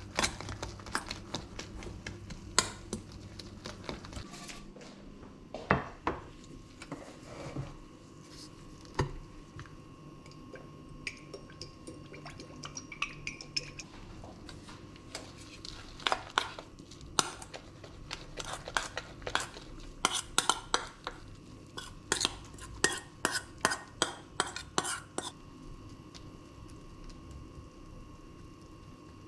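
A metal spoon scraping and clinking against a stainless steel bowl while grated potato and egg are stirred, then tapping and scraping in a frying pan as the mixture is spread out. The clicks come thickest in a quick run in the second half.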